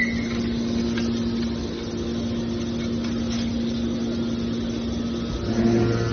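Aluminium baler machine running with a steady mechanical hum; a deeper hum joins in near the end.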